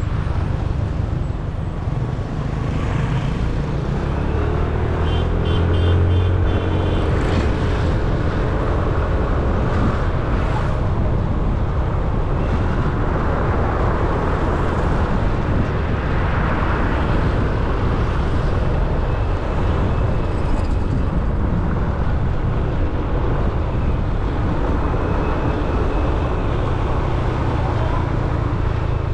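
Motor scooter on the move, heard from the rider's seat: the small engine running steadily under heavy wind and road noise, with the engine note shifting briefly about five seconds in.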